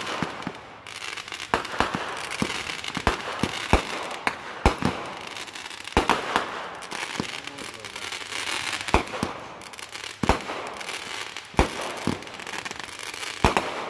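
Fireworks going off: shots launched from the ground burst overhead in a string of sharp bangs at uneven intervals, with crackling and hiss between them.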